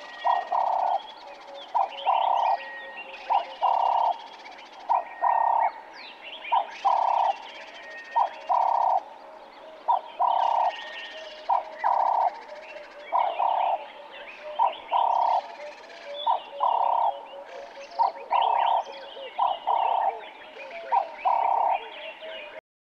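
Ring-necked (Cape turtle) dove cooing, a short note then a longer note repeated steadily about every second and a half, with smaller birds chirping faintly behind it. The recording cuts off abruptly near the end.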